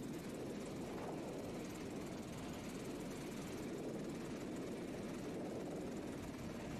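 Helicopter engine and rotor noise heard from on board, a steady even rush throughout.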